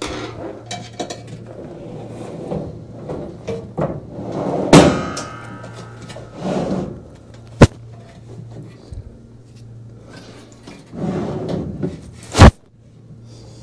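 Metal clanks and knocks from the washing machine's drive motor and transmission parts being handled and turned by hand: a ringing metallic clang about five seconds in, a sharp click a little later, and a loud knock near the end, over a steady low hum.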